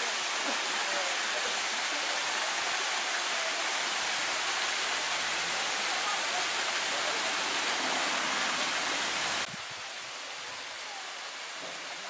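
Small waterfall and stream rushing steadily over rock. About nine and a half seconds in it drops suddenly to a quieter level.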